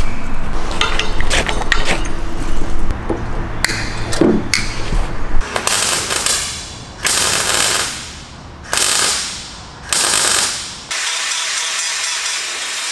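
MIG welder crackling and spitting as small holes in a car's engine bay are welded up, first for several seconds, then in four short bursts about a second and a half apart. About eleven seconds in, a steadier grinding sound takes over as the welds are ground down.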